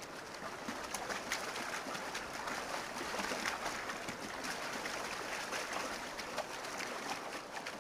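Rushing river water through rapids, with splashing from wildebeest wading and plunging across the current.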